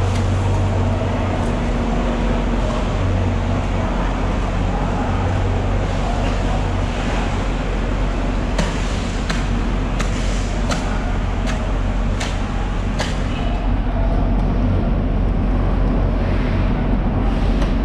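Steady low hum of idling machinery with background voices. About halfway through comes a string of sharp knocks, roughly one every second.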